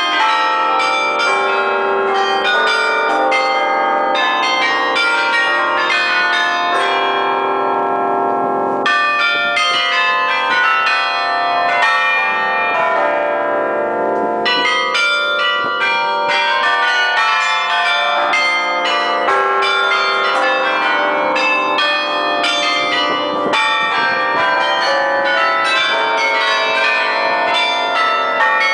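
The Bruges Belfry carillon's bronze bells playing a tune from the automatic drum mechanism, struck note after note so that each bell rings on over the next. It is heard loud and close from inside the bell chamber.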